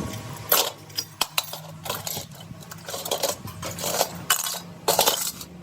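Metal parts clinking and scraping against each other in a series of sharp clinks and short scrapes, with a steady low hum underneath.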